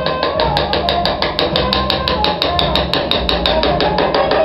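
Small engraving hammer tapping a hand chisel in rapid, even strokes, about eight a second, as the chisel cuts an engraving into a steel machete blade. The taps start about half a second in.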